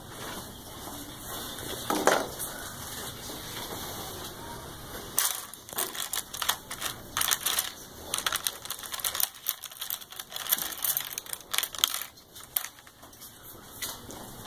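Metal palette knives and wooden-handled paint brushes clattering against each other and a clear plastic box as a hand rummages through them: a dense run of sharp clicks and rattles lasting several seconds, starting about five seconds in.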